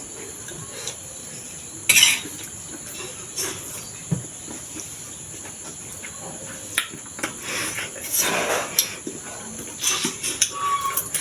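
Spoon and fork clinking and scraping on plates and bowls during a meal, with scattered clicks, a louder clatter about two seconds in and a longer scraping stretch around eight seconds in. A faint steady high-pitched tone runs underneath.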